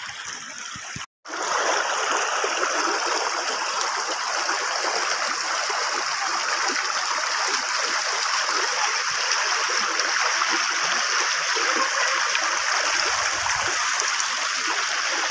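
Shallow stream rushing over stones, a steady, even rush of water. The sound drops out completely for an instant about a second in.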